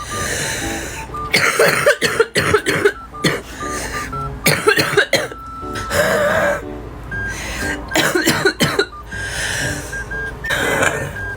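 A woman with bronchitis coughing in repeated wet, congested fits, with some throat clearing. Background music with a stepped melody plays underneath.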